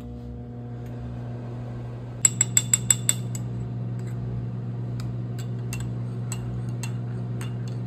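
Microwave oven running with a steady hum. About two seconds in, a metal spoon clinks quickly against a ceramic mug six times, then taps more sparsely as tea is stirred.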